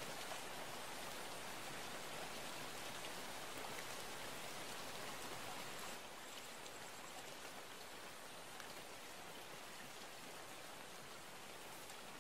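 A steady rain-like hiss that drops a little in level about six seconds in.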